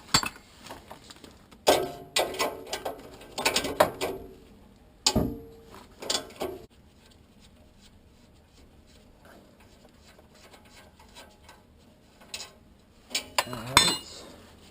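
Hand tools clinking and clanking on metal while the exhaust flange bolts and nuts are worked loose. The sounds come in scattered bursts of sharp clicks, with one heavier clank about five seconds in and a quiet stretch in the middle.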